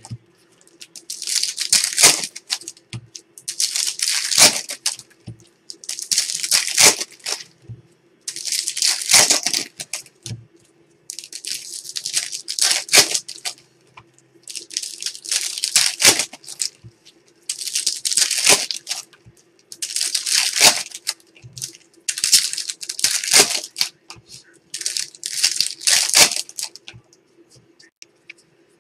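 Foil trading-card pack wrappers crinkling and tearing in the hands, in about a dozen separate bursts roughly two seconds apart. A faint steady hum runs underneath.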